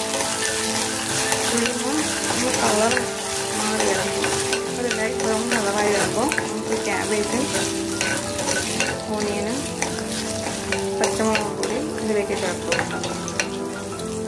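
Urad dal, mustard seeds, dry red chillies and curry leaves sizzling in hot oil in a clay pot while a spatula stirs and scrapes them, with many small clicks against the pot. This is the tempering stage, with the dal being roasted until it turns golden.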